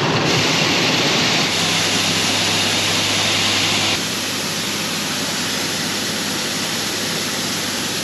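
Shelled corn pouring from a dump truck's gate into an auger hopper and falling in a stream into a grain bin: a steady rushing hiss over a low machinery hum. The rush drops a little about four seconds in.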